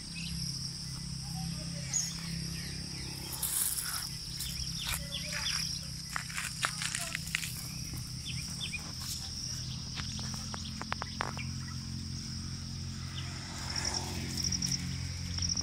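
Insects chirping steadily at a high pitch over a low steady hum, with scattered clicks and scuffs of gravel as kittens tussle and roll on it.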